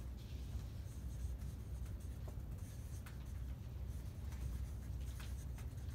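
Marker pen writing on flip chart paper: faint scratching strokes of the pen, over a low steady hum.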